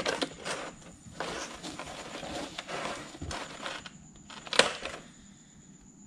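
Rustling and scraping of objects being handled, with a sharp knock at the start and a louder one about four and a half seconds in. A steady high insect trill goes on behind.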